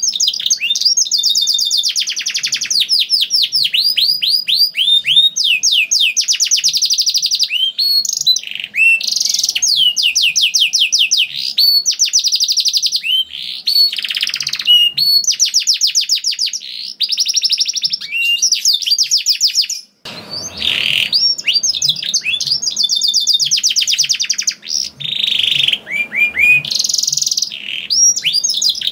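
Canary singing in full song: long, fast trills and rolls of rapidly repeated high notes, one phrase after another, with a brief break about twenty seconds in.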